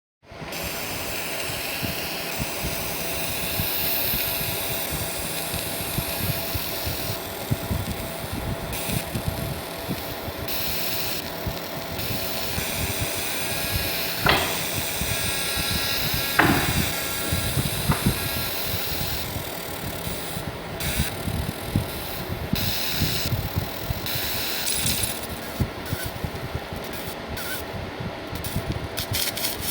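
Steady mechanical noise of machinery running, with a few brief gliding whines around the middle and sudden changes in tone several times.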